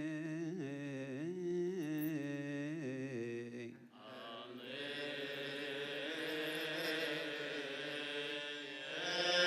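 Coptic liturgical chant: a single male voice sings a slow, ornamented melismatic line that wavers in pitch and breaks off about four seconds in. Fuller chanting, with several voices together, then takes up the melody.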